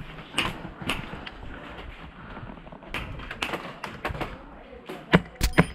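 Airsoft guns firing single shots: sharp, irregular cracks, a few scattered early on, several close together in the middle, and the loudest cluster of three near the end.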